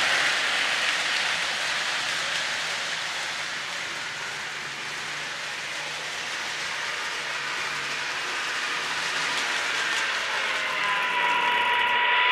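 Lionel O-gauge model train, an EMD SD9 diesel pulling freight cars on three-rail track, running out of sight with a steady clattering rumble of wheels and gear drive. The sound fades about midway, then grows again as the train comes back around, and a steady tone joins in near the end.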